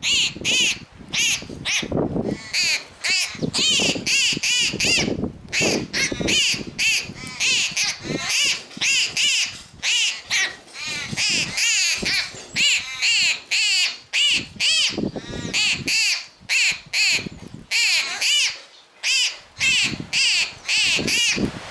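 Young sparrow begging to be fed: rapid, high chirping calls one after another with hardly a pause, mixed with calls of the adult birds.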